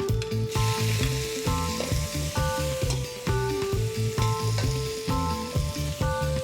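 Blanched squid dropped into a hot pan of oil with pounded chilli and garlic, sizzling from about half a second in as it is stir-fried.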